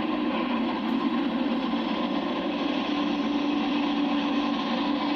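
Steady jet engine noise carrying across the airport ramp, with a steady hum that grows stronger about three seconds in.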